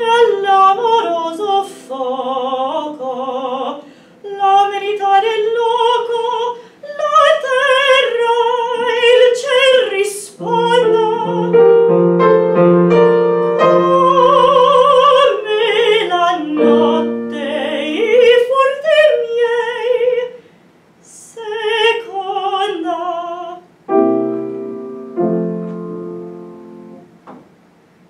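A woman singing in a classical, operatic style with wide vibrato, over piano accompaniment. The voice stops about four seconds before the end, leaving the piano playing alone.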